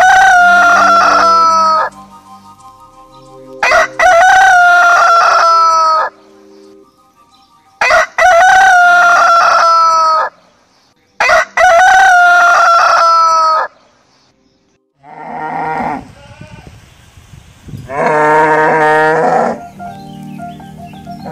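A rooster crowing four times, each crow about two seconds long, roughly four seconds apart. Near the end, cattle mooing twice.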